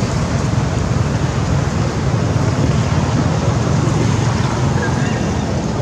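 Wind buffeting the camera microphone: a loud, steady rumbling noise that covers other sounds.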